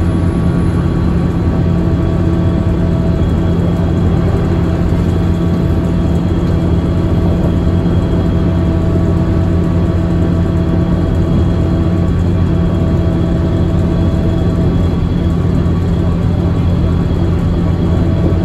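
Scania L94UB city bus's engine droning steadily at an even pitch, with tyre and road noise, heard inside the passenger cabin while the bus cruises.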